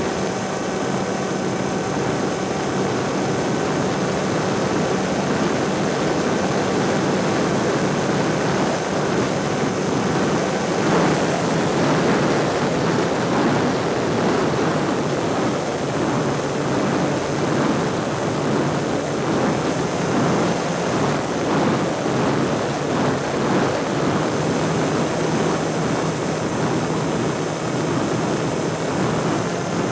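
A small aircraft's engine running steadily in flight, heard from on board with wind rushing over the microphone. The wind grows stronger and gustier from about a third of the way in, partly covering the engine tone, which comes back clearer near the end.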